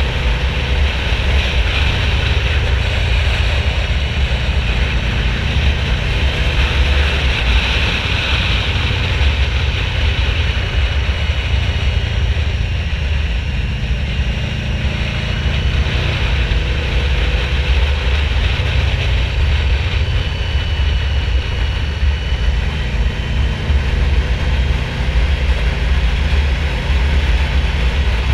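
Yamaha VMAX 1700's V4 engine running steadily while riding, mixed with a heavy low rumble of wind.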